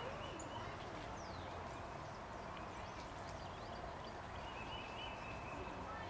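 Outdoor background ambience: a steady hiss and low rumble, with faint high chirps scattered throughout and a thin held tone in the second half.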